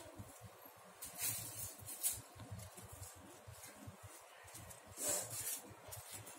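Scissors cutting through a folded stack of kite paper: short, crisp snips and paper rustles, the clearest about a second in, at two seconds and at five seconds.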